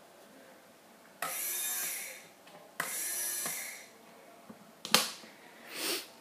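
The homemade ROV's thrusters, bilge-pump motors converted to thrusters, spin up in air in two short bursts of under a second each; each burst starts abruptly and fades. A sharp click follows near the end.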